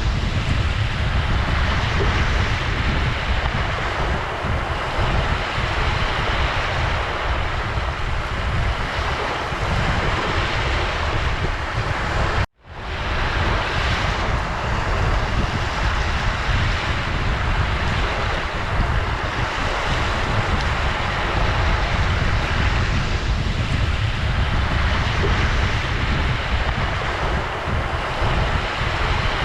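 Ocean surf washing steadily onto the shore, a dense hiss of water over a heavy low rumble. About twelve seconds in, the sound cuts out for a split second and fades back in.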